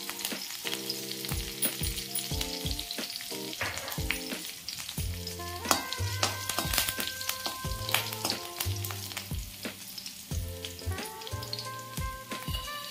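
Curry leaves, green chillies and cumin seeds sizzling in hot ghee in an aluminium kadai, with the clicks and scrapes of a metal spatula stirring them against the pan. Soft background music plays underneath.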